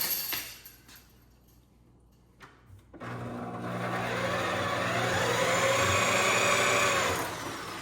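Powered Stripmeister wire-stripping machine running as a length of insulated cable is fed back through it to slit the insulation, a steady motor hum and whine that starts about three seconds in and drops off near the end.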